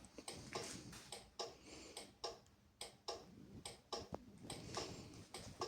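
Faint, irregular light clicks and taps, about two a second.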